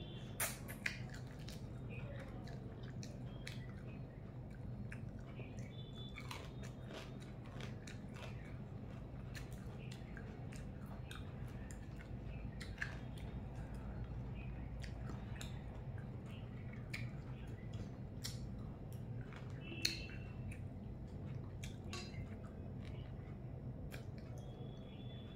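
A person chewing and biting food by mouth, with many small irregular clicks and crunches, over a steady low hum.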